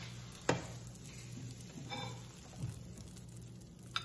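A spatula knocking and scraping in a ceramic-coated frying pan and against a plate as a cooked omelette is lifted out: four short clinks and knocks, two of them ringing briefly, over faint sizzling.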